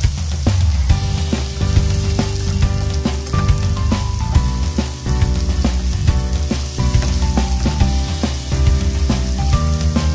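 Chopped onion and garlic sizzling in hot oil in a frying pan as a slotted spatula stirs them. Background music with a steady beat and held, stepping notes plays over the frying.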